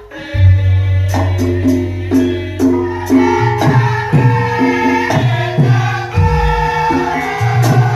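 Javanese gamelan playing, with bonang kettle gongs struck at about two notes a second over a sustained low gong tone. A deep gong stroke comes about six seconds in.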